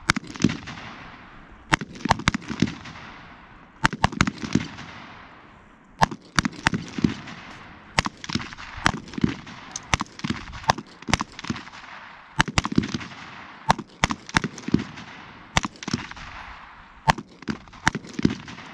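Gunfire from several shooters firing at once: irregular, overlapping shots, often in quick clusters, each with an echoing tail that dies away.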